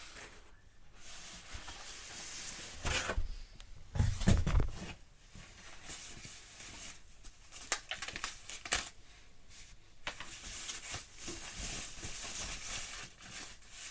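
Packaging being handled and torn open while unboxing a ukulele: irregular rustling, crinkling and small knocks, with a loud dull thump about four seconds in.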